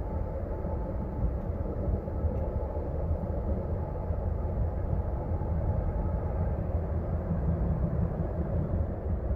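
Freight train rolling past, a steady low rumble of cars on the rails.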